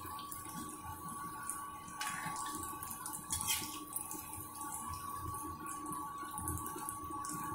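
Batter-coated potato bondas deep-frying in hot oil in a kadai: steady sizzling and bubbling, with a few light clinks of a steel slotted spoon turning them, around two and three and a half seconds in.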